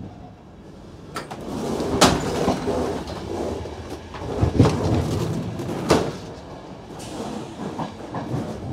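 Push-button automatic sliding doors in a passenger train opening and closing, with a rushing sound and three sharp knocks, about two, four and a half and six seconds in, the first the loudest.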